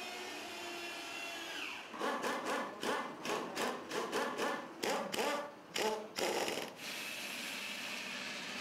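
Angle grinder cutting into old tyre rubber. It runs steadily, then bites in uneven, choppy bursts from about two seconds in until nearly seven seconds, then runs steadily again.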